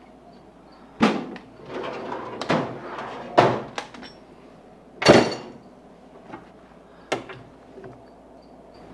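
Hardware and tools handled at a workbench: about six sharp clacks and knocks with rustling in between, the loudest about five seconds in.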